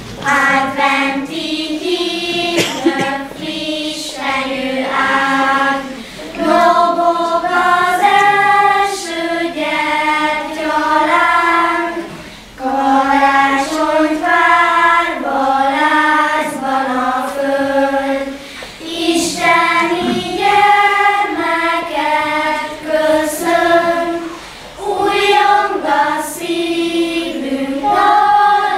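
Children's choir singing a song in unison with no instruments heard. The melody comes in phrases of a few seconds, with short breaks for breath between them.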